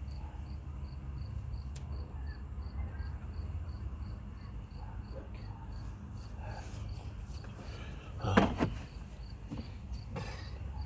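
Insect chirping steadily at about three chirps a second, over a low rumble like wind on the microphone. A short, loud clatter comes about eight seconds in.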